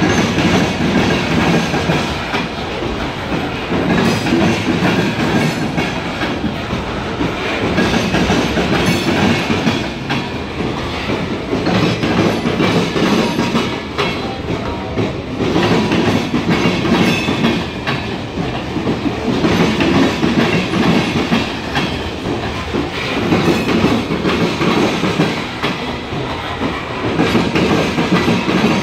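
Loaded coal cars of a slow CSX coal train rolling past close by, steel wheels clacking and clattering over the rails. The sound swells and eases about every four seconds as the cars go by.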